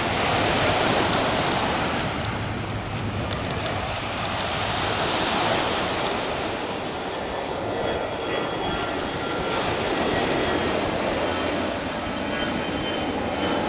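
Waves breaking and washing onto a sandy beach in a steady rush. A low-flying jet airliner comes in during the second half, its engines adding a steady high whine over the surf.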